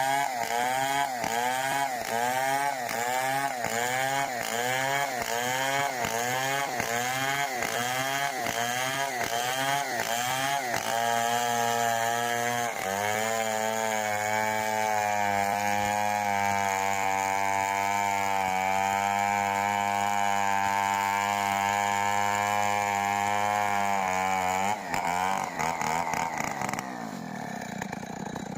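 Stihl 070 two-stroke chainsaw engine revving up and down in a quick rhythm, about one and a half times a second, then held at a steady high speed for about twelve seconds before dropping back toward idle near the end.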